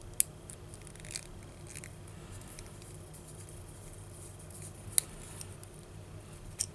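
Small screwdriver clicking and scratching against the metal shell of a 4-pin microphone connector while its tiny set screws are backed out. There are two sharp clicks, one just after the start and one about five seconds in, with faint ticks and scraping between them.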